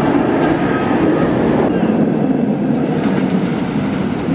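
Steel roller coaster train running along its track, a steady rolling rumble.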